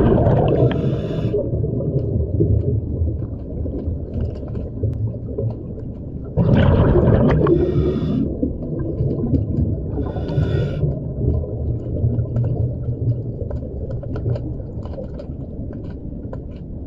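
Low, continuous rumbling sound, swelling louder twice: at the start and again about six seconds in, each swell carrying a brief hiss above the rumble.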